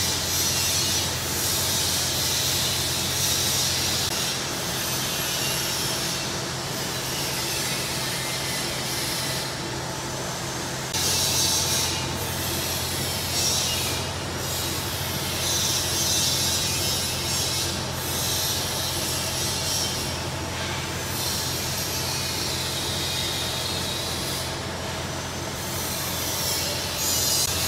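Automatic double-wire chain link fence machine running as it weaves diamond mesh: a steady motor hum under a scraping hiss from the wire being worked, which breaks off briefly every few seconds.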